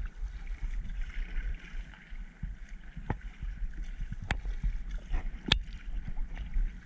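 Kayak paddling: water splashing and trickling around the paddle and hull, with a steady low rumble underneath. Three sharp knocks about halfway, a second and a bit apart; the last is the loudest.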